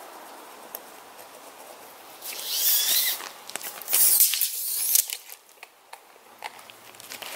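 Two spells of rasping, zipping noise, about two and four seconds in, as a tape measure's blade is drawn out and feet crunch across gravel, followed by a few scattered light clicks.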